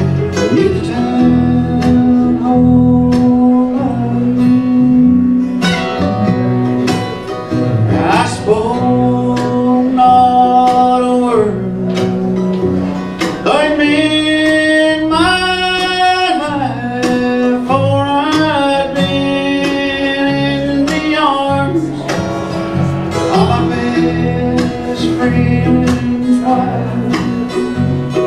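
Live country band playing a slow ballad: acoustic guitar strumming under a sustained, sliding lead melody.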